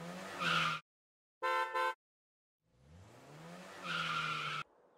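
Car sound effects for a logo: an engine revving up with a tyre squeal, two quick horn beeps, then another rev and squeal that cuts off suddenly.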